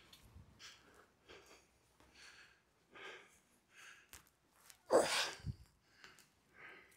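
Faint rustling and handling of a fabric jumpsuit and armor pieces, with one short louder burst of noise about five seconds in.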